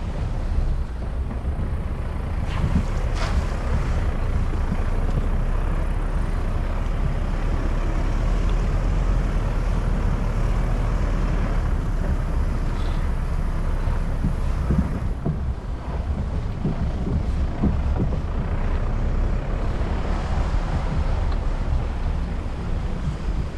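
Wind buffeting the microphone: a steady low rumble with a broad hiss over it.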